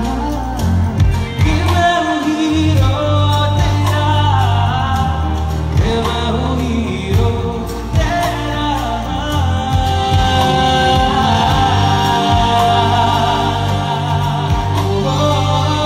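Live Bollywood pop song: a male singer sings a melody over a live band of drum kit, hand percussion, electric guitar and bass, amplified through stage loudspeakers.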